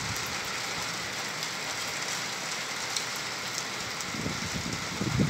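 Steady hiss of rain falling, with faint scattered drop ticks. A low rumble comes in near the end.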